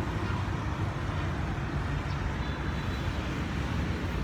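Steady low rumble of road-vehicle noise with no distinct events.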